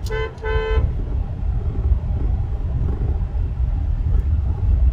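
A vehicle horn toots twice, short and quick, right at the start, over the steady low rumble of a car driving on the road.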